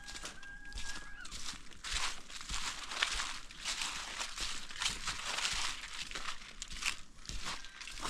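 Footsteps crunching through dry fallen leaves and dry grass on a dirt path, about two steps a second. A faint, steady high tone sounds in the first second.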